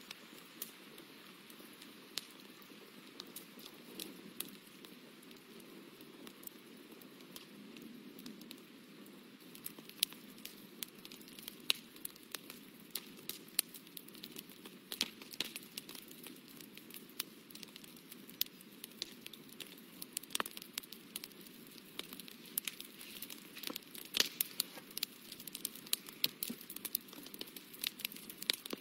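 Close handling of paper and a pencil: light, scattered ticks and crinkles of the sheet being held and shifted, sparse at first and growing busier from about a third of the way in, over a steady faint hiss.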